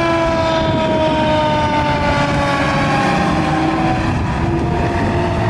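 Fire-engine siren: one long tone sliding slowly down in pitch, over a steady rushing noise.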